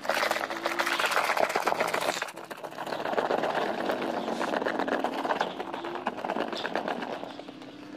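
A hand swishing and churning soapy water in a plastic bucket, with irregular splashing and sloshing, whipping the detergent into foam. It is loudest in the first two seconds, then goes on more softly.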